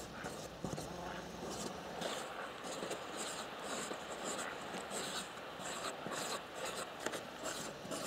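Felt-tip marker scratching on corrugated cardboard in many short, irregular strokes as it circles pellet holes on a shotgun pattern target.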